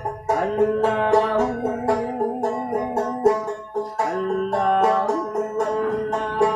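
A street musician plays a twangy plucked string instrument, quick plucked notes mixed with longer held notes that waver in pitch.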